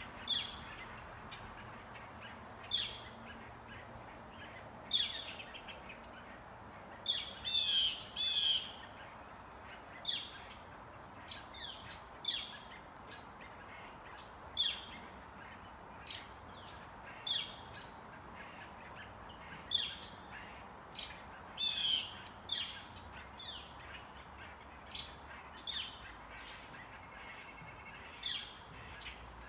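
Backyard birds calling: short, sharp calls repeated every second or two, with a couple of longer, harsher squawking calls, over a steady faint background hum.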